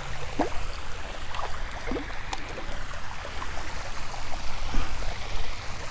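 Steady trickle of flowing water, broken by a few short splashes as a hooked bass thrashes at the surface against the rocks while it is landed by hand.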